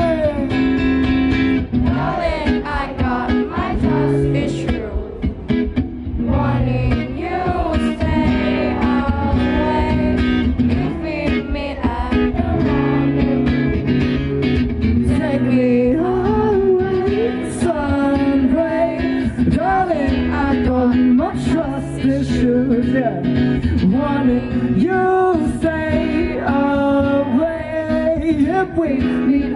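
Live song: a small-bodied acoustic guitar strummed and picked, with a male voice singing a melody over it.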